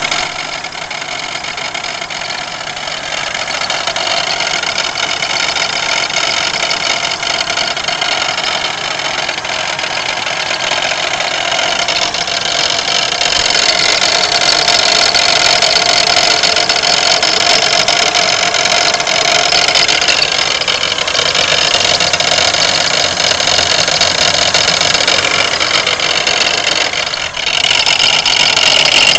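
1992 Pontiac Grand Am's 3.3-litre V6 running with a continuous grinding rattle, which the owner thinks is the harmonic balancer but is not certain. It gets somewhat louder about halfway through.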